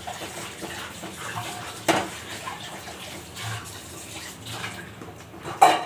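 Gravy bubbling and sizzling in a pan as a spoon stirs it, with two sharp clinks of the spoon against the pan, one about two seconds in and a louder one near the end.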